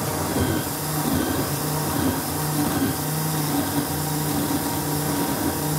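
Countertop blender motor running steadily, blending a kale and fruit smoothie, with a low hum under the whir.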